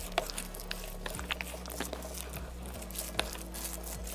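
A spoon stirring rice, egg and spicy red sauce together in a paper bowl: scattered soft clicks and scrapes.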